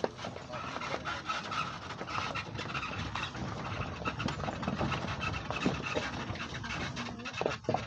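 Safari vehicle driving on a rough forest track: engine noise with frequent knocks and rattles.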